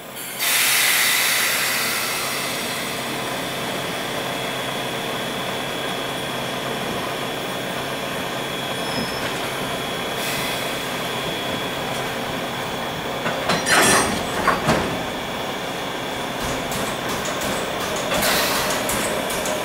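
D51 steam locomotive hissing steam: a sudden loud rush of steam about half a second in eases into a steady hiss. A few loud clanks come about two-thirds of the way through, and another rush of steam near the end.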